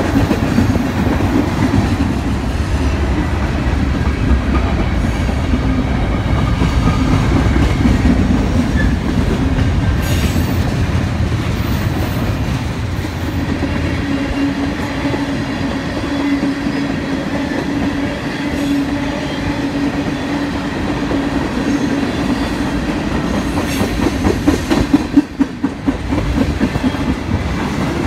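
Freight train of hopper, gondola and tank cars rolling past close by: a steady noise of steel wheels on rail, with a hum that grows stronger about halfway through and a few sharp knocks near the end.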